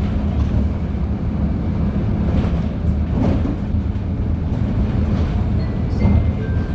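Inside a LiAZ-5292.71 natural-gas city bus under way: steady low engine and road rumble with interior rattles and a few knocks. A faint high tone sounds briefly near the end.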